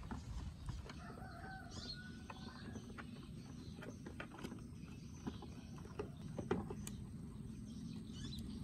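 Small clicks and taps of a screwdriver and fingers working a screw into a plastic radio case, over a steady low background rumble. A short bird call sounds about a second in.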